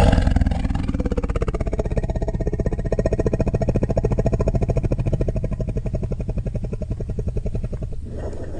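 Stock animal growl sound effect: one long, low, rattling growl made of rapid even pulses, starting suddenly.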